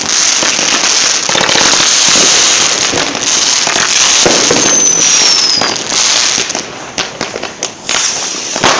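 Fireworks going off loudly: a continuous hissing, crackling spray of sparks for about six and a half seconds, with a falling whistle about five seconds in, then a scatter of separate cracks and bangs near the end.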